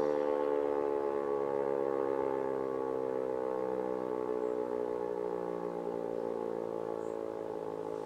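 E57 electromechanical siren winding down during a fire-alarm (Feueralarm) test. Its many-toned wail slides slowly lower in pitch and fades.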